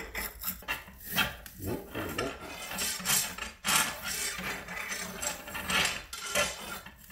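A thin metal bar scraped and jabbed back and forth inside a bored hole in hex stock, breaking up the metal chips packed in it, in irregular scraping strokes.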